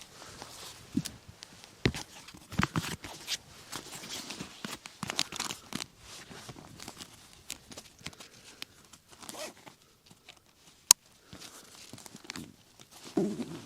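Rustling and crinkling of camping gear being packed away, likely nylon and stuff sacks, with irregular clicks and knocks and one sharp click late on.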